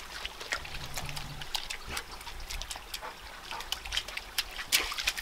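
A Vizsla drinking from and stepping through a shallow trickle of water on creek gravel: a string of small wet clicks and splashes over a faint, steady trickle.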